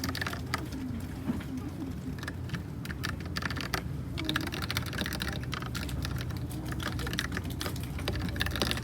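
Typing on a Thinkway Toche F mechanical keyboard with Cherry MX Red linear switches: quick runs of key clicks with a short pause a little before the middle, over a steady low hum.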